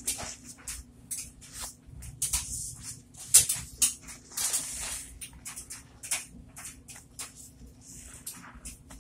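A sponge squeezed and kneaded in a bowl of thick soapy foam: irregular wet squelches and crackling, popping suds, with the loudest squishes around the middle.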